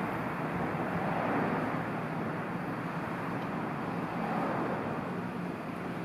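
Steady traffic noise: an even background rumble with a faint low hum and no distinct events.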